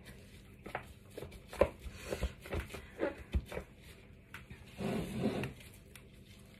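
Handling noise from plastic-gloved hands pressing cake mass into a silicone popsicle mould and setting wooden sticks: a series of light knocks and taps, then a short rubbing sound about five seconds in.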